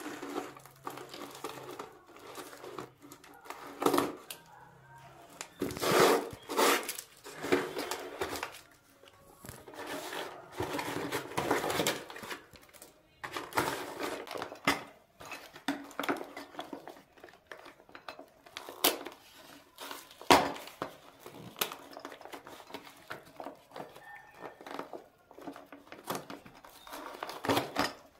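A taped cardboard parcel being opened by hand: irregular rustling and scraping of cardboard and tape, with a few sharp rips, the loudest two about 19 and 20 seconds in. Near the end the plastic wrapping of a set of small steel utensils crinkles.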